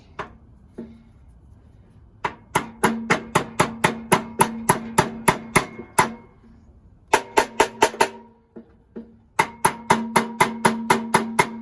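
Brass hammer tapping a 1/4-inch steel key into a crankshaft keyway, metal on metal, each blow ringing with a clear note. The blows come in quick runs of about five a second, three runs in all with short pauses, after two light single taps at the start.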